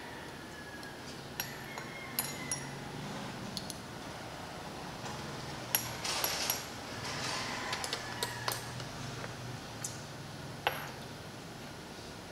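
Light clinks and taps of laboratory glassware: a glass pipette knocking against a glass test tube and a reagent bottle while acid is dispensed, about a dozen separate ticks spread unevenly, with a short soft hiss about six seconds in.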